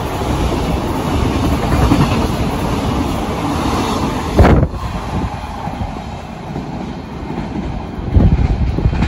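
Container freight wagons rolling past close by, steel wheels running on the rails with a clickety-clack over rail joints. About halfway through the sound cuts off sharply to a quieter train sound heard from farther away, and the rumble and clacks grow louder again near the end.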